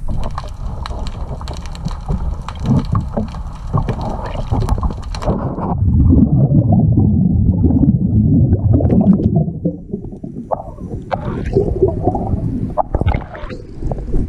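Underwater: a steady hiss with many sharp crackling clicks, which cuts off about five seconds in and gives way to a loud, low gurgling rumble of a scuba diver's exhaled air bubbles. Near the end, water splashing and sloshing at the surface.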